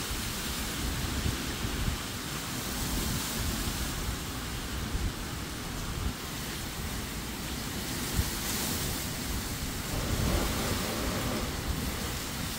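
Hurricane wind rushing through a queen palm's fronds and trees, with rain, in a constant hiss, and gusts buffeting the microphone in low thumps. The gusts swell about two-thirds of the way through.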